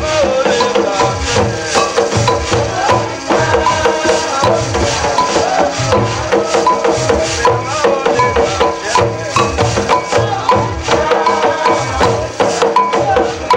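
Ceremonial chanting with shaken rattles and struck percussion keeping a steady, dense beat.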